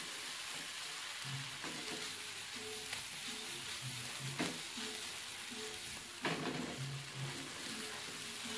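Blended spice paste of shallots, garlic, chili, ginger, candlenut and turmeric sizzling steadily as it is sautéed in margarine in a non-stick pan, stirred with a wooden spatula that scrapes the pan a few times. The paste is being cooked until fragrant and no longer raw.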